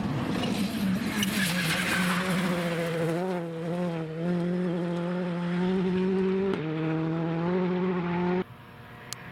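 Citroën C3 R5 rally car's turbocharged four-cylinder engine under hard throttle on a gravel stage, a rushing of gravel and tyre noise at first, then a loud engine note held at a fairly steady pitch. Near the end it cuts off abruptly, leaving a quieter, more distant engine sound with a single click.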